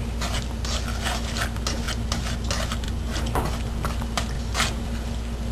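Wooden chopsticks clicking and scraping against a nonstick wok as diced chicken in sauce is stirred: an irregular run of clicks, about four a second, over a steady low hum.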